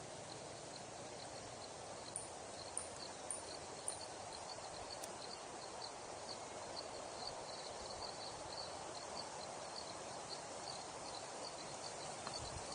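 Outdoor nature ambience: a steady hiss with a faint high chirp repeating a few times a second, and a few sharp high ticks about two to four seconds in.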